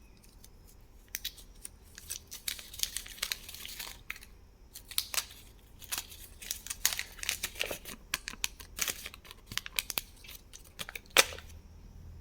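Candy wrappers being torn open and crinkled by hand, in quick crackling runs with a short pause midway and one sharp, loud crack near the end.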